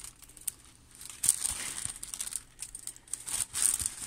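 Clear plastic packaging sleeve crinkling in irregular bursts as the diamond painting canvas inside it is handled, loudest about a second in and again near the end.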